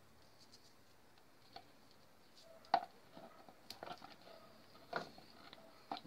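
Faint clicks and rustles of hands working on a fan's wiring, taping up the splice to its new start capacitor. It is quiet at first, then one sharper click a little under three seconds in and a few lighter ones after.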